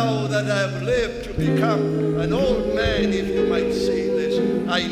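Worship music: long held instrumental notes under a voice singing with vibrato.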